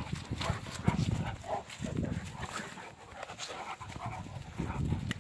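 Saint Bernard and Great Dane play-fighting: panting, with several short bouts of low, rough growling as they wrestle.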